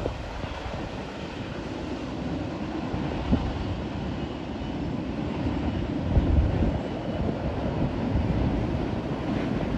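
A train rolling past on the track: a steady low rumble of wheels and cars.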